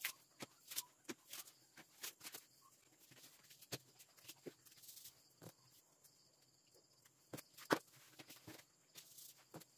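Near silence with scattered faint taps and rustles: paper picture cut-outs being pulled off and pressed onto a wall. The clearest tap comes near the end.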